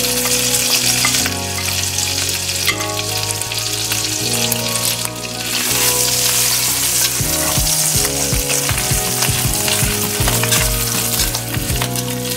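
Dried shrimp sizzling steadily in hot oil in a stainless steel wok, stirred with a metal spatula that taps and scrapes against the pan, more often in the second half.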